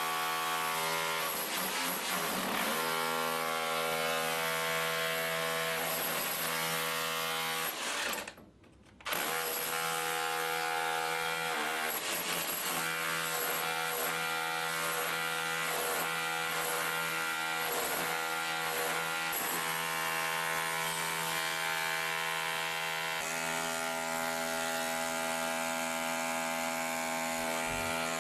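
Makita BHR261 36-volt cordless SDS-Plus rotary hammer drilling into concrete in hammer mode, running steadily with a rapid, even hammering. It stops for about a second around eight seconds in, then runs on, its tone shifting slightly near the end.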